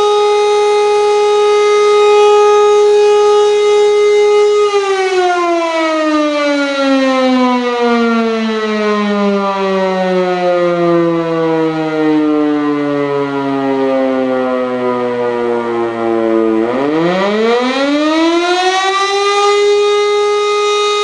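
E57 electro-mechanical fire siren, driven by a three-phase electric motor, sounding a steady full-speed tone. About five seconds in the motor cuts out and the pitch slowly winds down for about twelve seconds. The motor then restarts and the pitch winds quickly back up to full tone within about three seconds: the on-off cycling of a fire alarm call.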